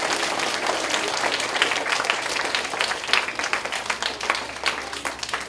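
A room full of elementary schoolchildren applauding: dense clapping that gets quieter and thins out toward the end.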